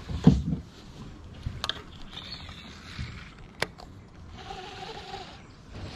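Quiet handling sounds from a fishing kayak and rod: two short sharp clicks about two seconds apart, a faint hiss between them, and a brief faint hum near the end.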